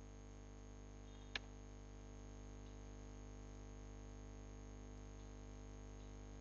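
Faint, steady electrical hum from the recording setup, with a single sharp click about a second and a half in.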